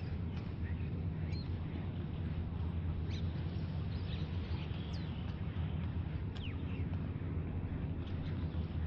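Scattered short bird chirps, some sliding down in pitch, a second or so apart, over a steady low rumble of outdoor background noise.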